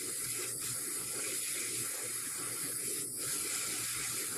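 Large handheld butane torch, set in its lock position, burning with a steady jet hiss.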